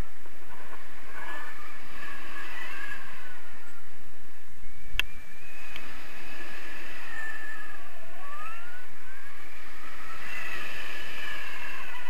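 Wind rushing over an action camera's microphone in paraglider flight: a steady rushing noise with faint whistling tones that slide up and down in pitch. There is a single sharp click about five seconds in.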